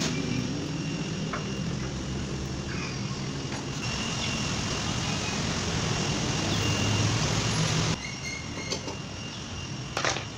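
A machine running steadily with a low hum, which cuts off suddenly about eight seconds in, followed by a few light clicks.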